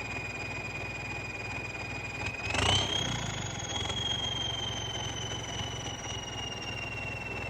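Motor vehicle engine running with a steady high-pitched whine. About two and a half seconds in, the whine rises quickly as the vehicle accelerates, then slowly falls away.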